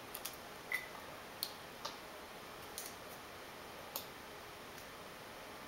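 Small chocolate candies dropped one by one into a cut-glass dish: a string of light, irregular clicks, one with a brief high glassy ring.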